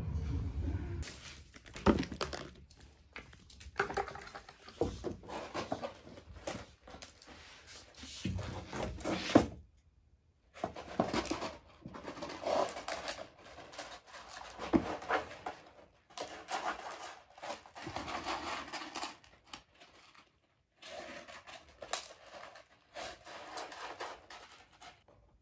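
A kitten digging and scratching in cat litter, the granules rustling and scraping in repeated bouts with short pauses between.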